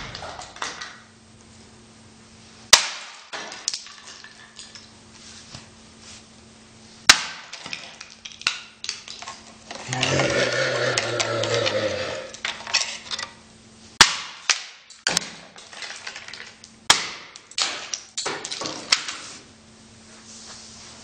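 A household fire alarm being smashed with a series of hard blows, with crunching and rattling as its casing breaks. The blows come a few seconds apart at first and faster in the second half.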